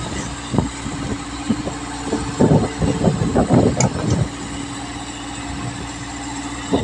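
Hyundai crawler excavator's diesel engine running steadily, with irregular knocks and clatter as the bucket digs into and lifts wet soil. The knocks come about half a second in and again in a cluster from about two and a half to four seconds.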